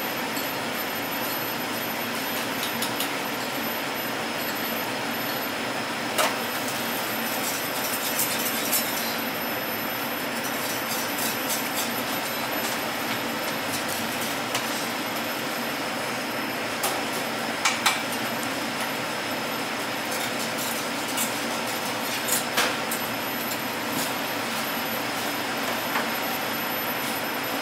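Steady background noise of a restaurant kitchen, an even hum and hiss, with scattered light clicks and clinks.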